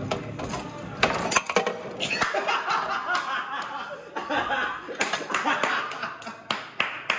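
Foosball being played: a run of sharp, irregular knocks and clacks as the rod figures strike the ball, with people laughing.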